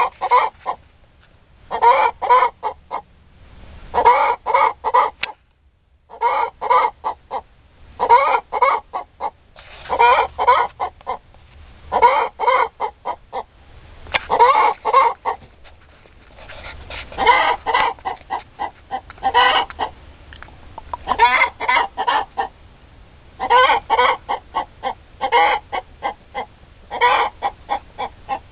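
Chicken cackling: a quick run of short clucks about every two seconds, over and over.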